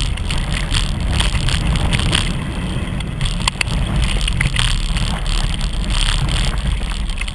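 Mountain bike ridden along a dirt and gravel trail: a steady low rumble from the ride, with scattered clicks and rattles as the bike jolts over bumps.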